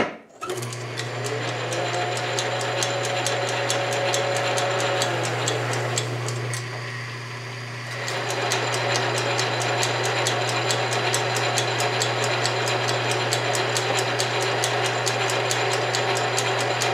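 Sheldon metal lathe starting up and running under its electric motor, driven by a newly laced leather flat belt: a steady motor hum with an even, rapid clicking as the belt's metal lacing passes over the pulleys. The run dips briefly about six seconds in, then steadies again.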